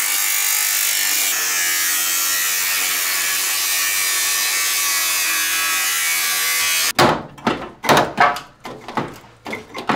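Cordless angle grinder running steadily as it cuts through a car's front radiator support, then cutting off suddenly about seven seconds in. Several short knocks follow in the last few seconds.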